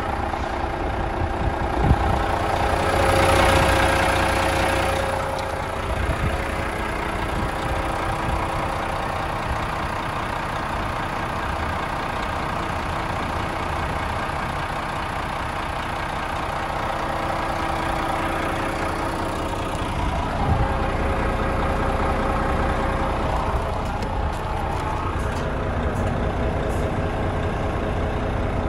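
Renault T460 truck's DTI 11 six-cylinder diesel engine idling steadily. A louder rushing noise swells and fades over a few seconds near the start.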